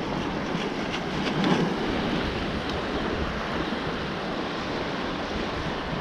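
Shallow, choppy bay water sloshing and splashing around a wader's legs and sand scoop, with wind buffeting the microphone.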